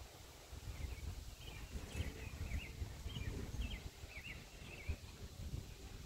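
Wind on the microphone as an uneven low rumble, with a small bird chirping a quick run of short high notes in the first four seconds or so.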